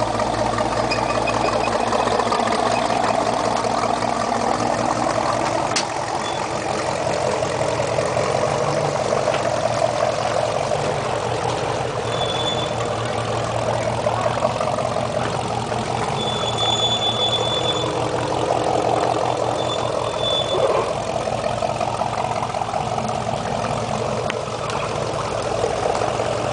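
GMC pickup truck's engine running steadily at low revs as the truck crawls slowly over a muddy, rutted trail.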